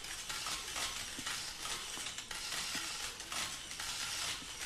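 Many camera shutters clicking rapidly and overlapping into a continuous crackle, as a crowd of press photographers fires away at once.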